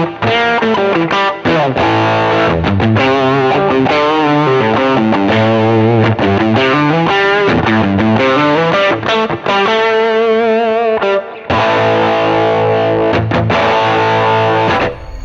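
Distorted electric guitar playing riffs and lead lines with vibrato: a Heritage Les Paul's bridge-position Gatekeeper H90 pickup driven through a GK-Drive distortion pedal. The playing breaks off briefly about eleven and a half seconds in and stops near the end.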